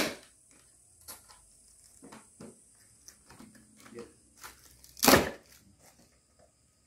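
Wooden crate being pried open with a hammer: scattered small knocks and creaks of the wooden slats, and one loud crack of wood about five seconds in.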